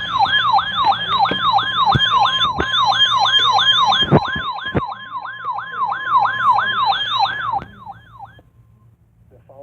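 Siren-style alert tone: a note that sweeps down in pitch about three times a second, over a steady high tone, with a couple of knocks in the middle; it fades out about eight seconds in.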